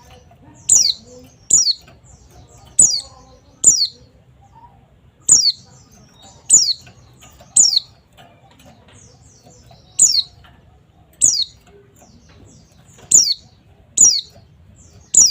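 A white-eye (pleci) calling: about a dozen sharp, high chirps, each dropping quickly in pitch, spaced about a second apart and often in quick pairs.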